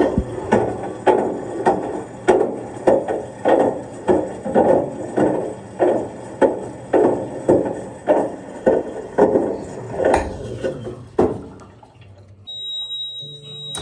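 Front-loading washing machine drum turning with regular thuds, about two a second, as the load tumbles against the drum. The thudding dies away about eleven seconds in, and a steady high electronic beep sounds near the end.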